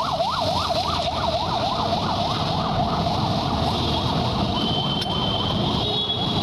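An emergency vehicle siren yelping, its pitch sweeping rapidly up and down about three times a second, growing fainter over the last few seconds, over a steady background din.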